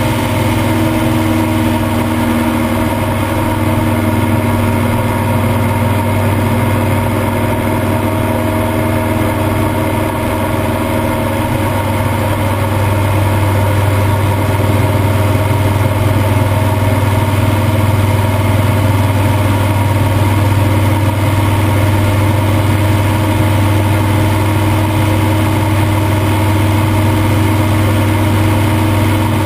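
Piper J-3 Cub's engine and propeller running steadily at climb power after takeoff, a constant deep drone with a rush of air over it, getting a little louder about halfway through.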